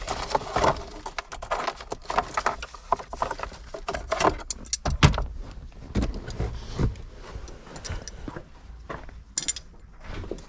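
Irregular clicks, rattles and knocks as parts are handled and removed in a car's interior.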